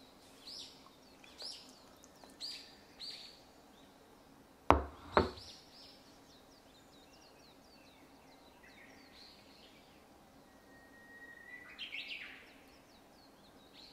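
Birds chirping in short repeated chirps about a second apart, with two sharp knocks half a second apart about five seconds in, and another burst of chirping near the end.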